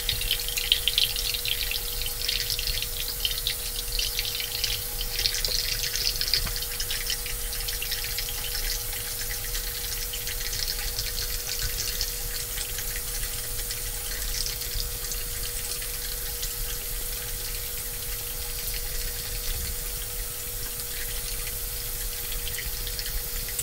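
Bathroom sink tap running steadily into the basin, with a faint steady whine in the pipes.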